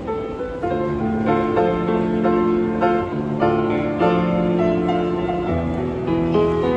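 Grand piano played with both hands: a melody over held chords, new notes struck about every half second and left ringing.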